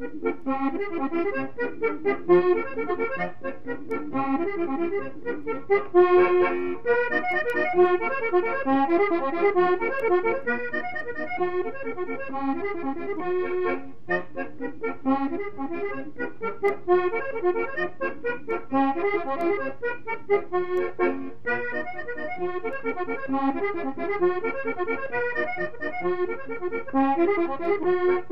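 Accordion playing a brisk traditional-style tune, quick runs of short notes over a steady bass.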